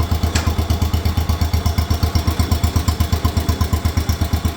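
Engine of a Farmhandy three-wheeled tractor idling with an even, rapid beat, with one light click about half a second in.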